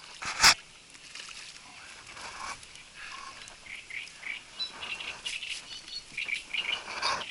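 A landing net and fishing gear handled in an inflatable boat: one sharp knock about half a second in, then light rustling and clicking, with short high chirps of birds in the reeds.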